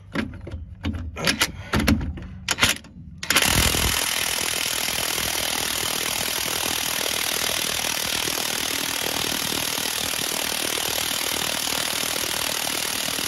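Cordless impact wrench on a seized suspension nut at the front strut-to-hub mount. A few short bursts, then about three seconds in a steady run of continuous hammering. The nut does not break loose.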